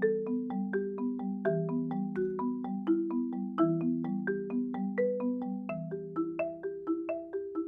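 Marimba played with mallets: an even run of struck notes, about three a second, with low bass notes ringing on beneath a higher moving line. Raw, unprocessed sound picked up by a microphone beneath the bars.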